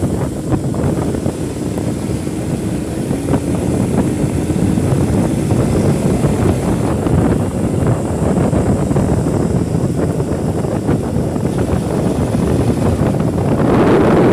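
Bajaj Pulsar NS200 single-cylinder motorcycle riding at speed, heard from the rider's seat. Heavy wind rushes over the microphone on top of the engine, and the engine note rises slowly over the first few seconds as the bike pulls. A louder rush comes near the end.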